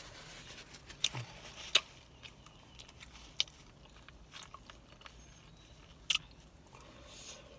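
Quiet chewing and mouth noises of a person eating, with a few sharp mouth clicks standing out now and then over a faint hush.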